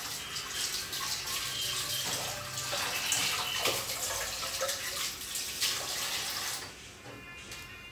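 Kitchen tap running into a sink as leafy vegetables are rinsed under it, a steady splashing hiss that falls away near the end.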